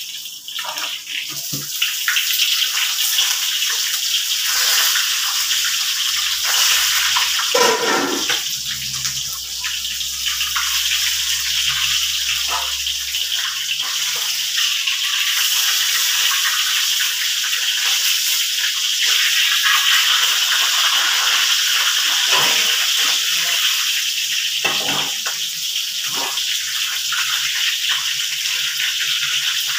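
Fish frying in hot oil in a wok: a steady, loud sizzle, with now and then the knock and scrape of a metal spatula against the wok as the fish is turned.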